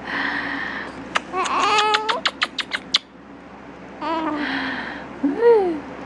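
A six-week-old baby cooing and making small breathy vocal sounds, one coo rising and falling in pitch near the end. A quick run of sharp clicks comes about halfway through.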